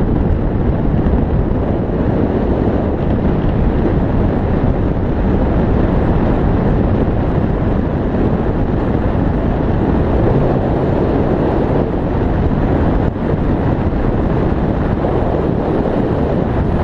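Loud, steady wind noise rushing over the microphone of a bicycle-mounted camera on a fast downhill descent.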